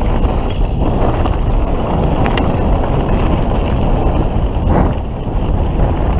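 Wind rushing over the camera microphone and the knobby tyres of a Canyon Spectral full-suspension mountain bike rolling fast over a dirt trail, with a few faint clicks and rattles from the bike.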